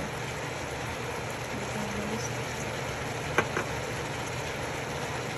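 Steady sizzling hiss from the stew pot with beef and chopped vegetables cooking over the heat, with two quick sharp clinks about three and a half seconds in.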